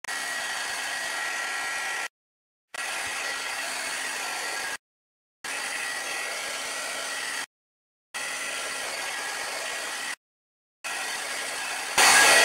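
Handheld craft heat tool blowing steadily, a fan hiss with a high whine, drying wet watercolor on a journal page. The sound drops out completely for about half a second roughly every two and a half seconds, and it gets suddenly louder just before the end.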